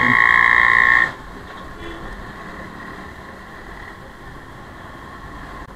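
A loud, steady, high-pitched tone stops abruptly about a second in. After it comes the steady, quieter noise of a motorcycle riding through city traffic.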